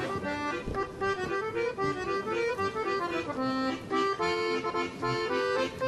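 Background music: a melody of short held notes stepping up and down in quick succession.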